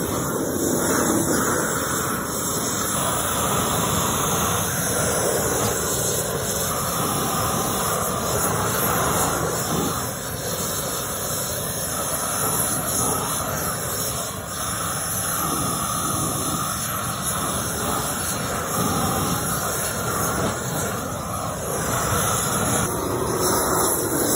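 Hose-fed propane torch running with a steady hiss of flame as it chars the faces of lumber boards.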